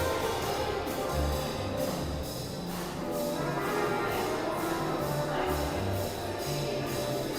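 Orchestral music with brass, held notes over a steady beat.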